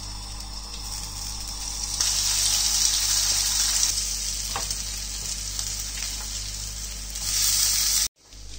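Vegan streaky bacon rashers frying in a little oil in a griddle pan: a steady sizzle that gets louder about two seconds in and cuts off abruptly near the end.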